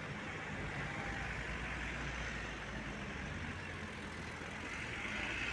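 Road traffic noise: passing vehicles with a steady low engine rumble that swells and fades, heard through a phone's built-in microphone.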